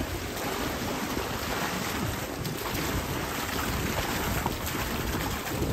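Wind blowing across the microphone: a steady rushing with an uneven low rumble.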